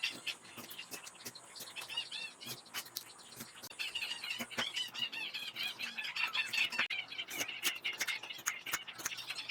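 Birds chirping rapidly and over and over, with scattered sharp clicks or taps.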